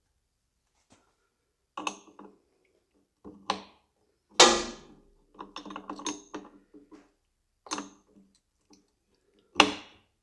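A wrench clanking and clicking on the corroded nuts of a tractor's battery terminals as they are worked loose. There is a series of sharp metallic knocks with short ringing, the loudest about four and a half seconds in, and a quicker run of clicks around six seconds.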